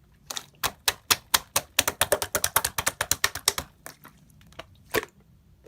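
Rapid typing: a quick run of key clicks, about seven a second, for about three seconds, then a few scattered keystrokes, the last one about five seconds in.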